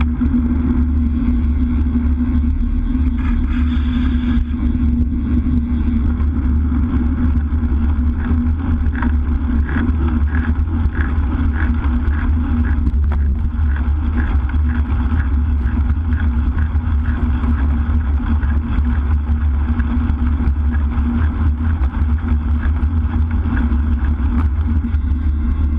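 Wind rushing over a road bike's handlebar-mounted action camera at speed, mixed with tyre noise on the tarmac: a loud, steady low roar, with faint ticking about twice a second through the middle.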